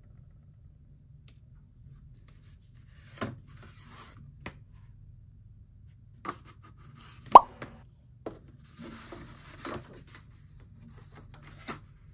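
A canvas board and a sheet of drawing paper being handled on a desk: scattered taps and knocks as they are picked up and set down, the loudest about seven seconds in, with brief paper rustling.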